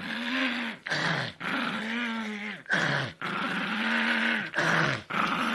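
A dog vocalizing in a string of about six long, drawn-out calls whose pitch bends up and down, with short breaks between them.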